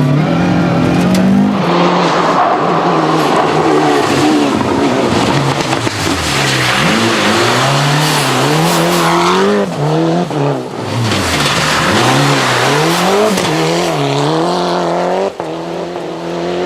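Mitsubishi Lancer Evolution rally car's turbocharged four-cylinder engine driven hard, revs repeatedly climbing through the gears. Revs fall sharply around six and eleven seconds in, as for braking into corners, then climb again.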